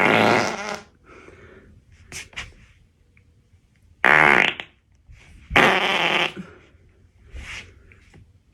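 A woman's farts: three loud ones, the first ending about a second in, a short one about four seconds in, and a longer one about a second and a half later, with fainter small sounds between.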